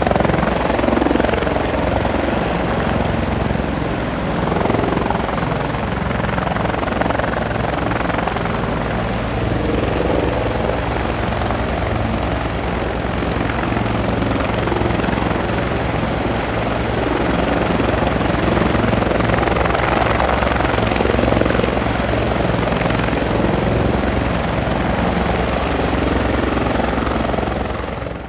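Helicopter running steadily, its rotor blades chopping rapidly over a constant engine noise, with a thin steady high whine above it.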